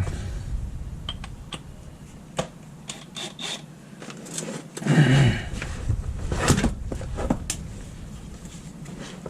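Scattered metal clinks and clicks of a socket, extension and wrench being fitted onto a strut rod nut under a van, with one brief louder burst about five seconds in.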